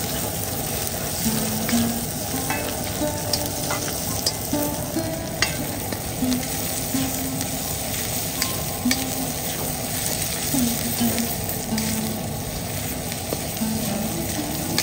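Food sizzling as it fries in a pan, with scattered clicks of a spoon stirring it.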